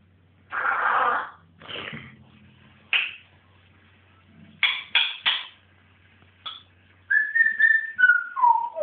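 African grey parrot calling: a harsh squawk about half a second in, a few short sharp calls in the middle, then near the end a whistle held high and dropping in steps.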